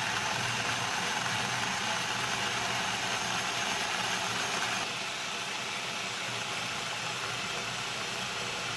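Food processor motor running steadily at speed, its blade whirring through the dressing as oil is drizzled in to emulsify it. The sound dips slightly about five seconds in.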